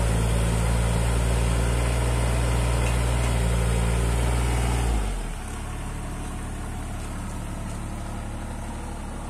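JCB 8030 ZTS mini excavator's diesel engine running steadily at raised revs, then dropping to a lower, quieter idle about five seconds in.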